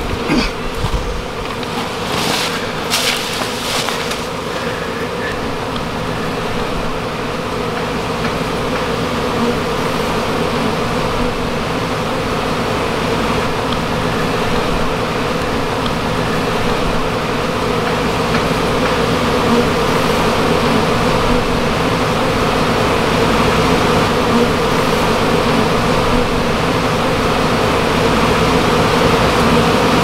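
Honey bees buzzing in a dense cloud around a hive box, a steady hum that grows slightly louder: a displaced colony whose bees are airborne and settling into the new box. A few knocks in the first seconds as the wooden box is set down.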